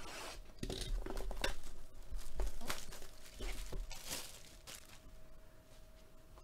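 A sealed cardboard box of 2022 Topps Museum Collection baseball cards being handled and slid about on a table: irregular rustling, scraping and light knocks, busiest in the first few seconds and tapering off.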